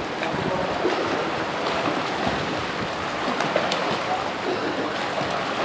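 Swimmers splashing and kicking in a pool: a steady wash of churning water with a few sharper splashes a little past the middle.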